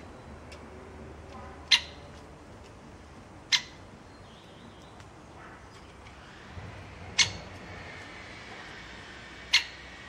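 Great spotted woodpecker giving four sharp, short single calls, spaced a few seconds apart.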